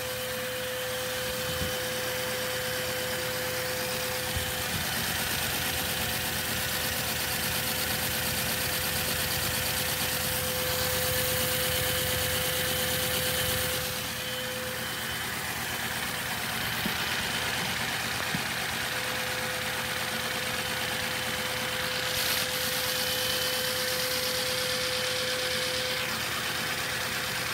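Three-cylinder LEGO vacuum engine running steadily on vacuum-cleaner suction: a fast, even clatter of plastic pistons, crankshafts and gears, over the constant hum of the vacuum cleaner driving it.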